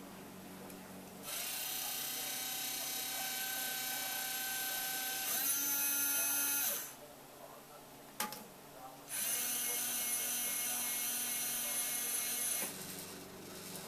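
Small electric motors driving a scratch-built model crane whine steadily in two runs of a few seconds each. The pitch and volume step up partway through the first run, and a single click falls in the pause between the runs.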